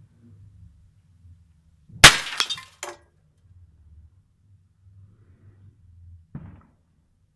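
A glass bottle shattering as an air-pistol pellet hits it: one sharp crack about two seconds in, then breaking glass and falling shards tinkling for under a second. A short dull thump follows near the end.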